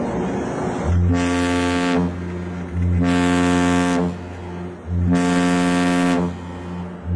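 A large ship's horn sounding a series of loud, deep blasts, each a little over a second long, about every two seconds: three full blasts and the start of a fourth near the end. Repeated short blasts at approaching small boats are the warning (danger) signal.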